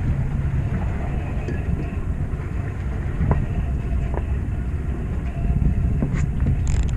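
A fishing boat's engine runs at a steady low rumble, with wind and water noise over it.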